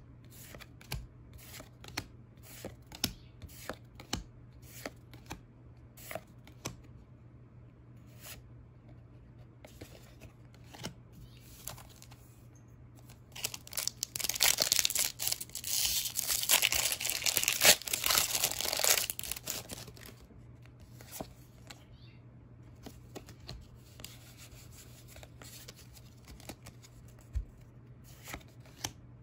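Pokémon trading cards flicked one by one off the front of a stack, a series of soft clicks. About halfway through, a foil Pokémon Astral Radiance booster pack is torn open and crinkled loudly for about five seconds. Near the end, quieter rustling and card flicks follow.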